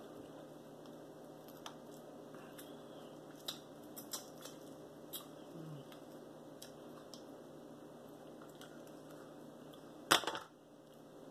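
Cooked mussel shells being handled: a few faint clicks, then one sharper clack of shell near the end.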